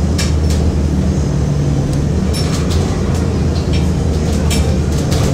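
Cabin sound of a 2018 Hometown Trolley streetcar-style bus under way: the engine and drivetrain run with a steady low hum under road noise, and the body rattles and clinks sharply a few times.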